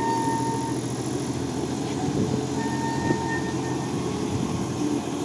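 Mitsubishi forklift's engine running steadily under load as it moves, with a thin whine that comes and goes.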